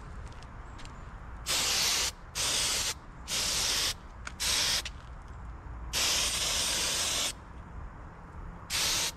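Spray adhesive hissing from its nozzle in six short bursts, the longest just over a second, the last near the end.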